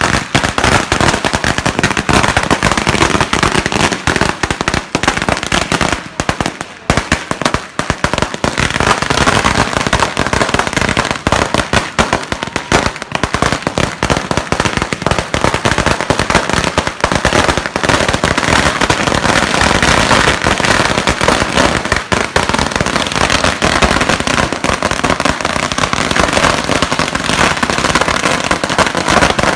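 A 10,000-wala chain of firecrackers going off in a continuous rapid crackle of bangs, thinning briefly about six to seven seconds in before packing densely again.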